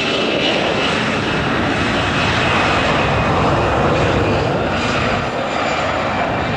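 Airbus A318 taking off on its two CFM56 turbofan engines at takeoff thrust: a loud, steady jet rush that swells a little as the airliner lifts off and climbs away.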